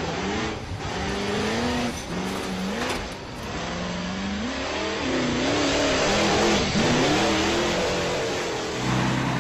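Vehicle engines revving, their pitch rising and falling again and again over a dense rush of noise. Near the end a steady low engine drone comes in.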